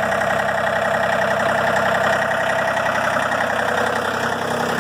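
John Deere 4105's 41 hp Yanmar diesel engine running steadily at part throttle.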